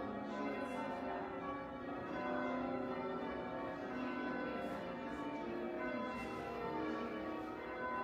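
Church bells being rung in English change ringing as part of a peal, one bell struck after another so that the strokes overlap continuously, heard from inside the church.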